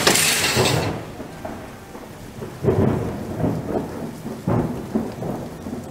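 Thunderstorm: a loud crack of thunder at the start, then steady rain hiss with several low rolls of thunder in the second half.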